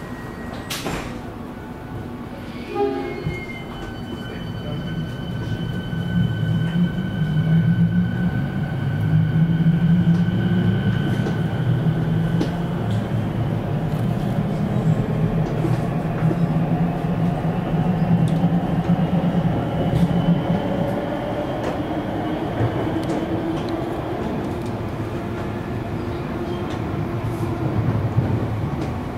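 Siemens electric multiple unit heard from inside the carriage while running between stations: a steady rumble of wheels on rail with clickety-clack. For the first dozen seconds a thin steady whine from the traction equipment sits above it.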